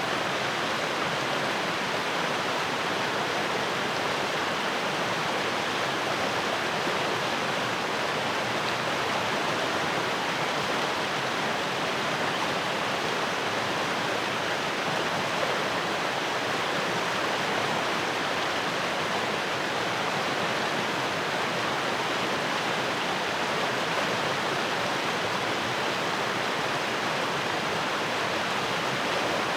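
Fast-flowing stream rushing steadily over rocks, a constant full rush of water.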